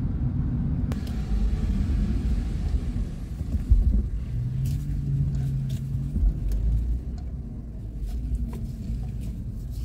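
Car driving, with a low, steady engine and road rumble heard from inside the cabin. It grows quieter near the end.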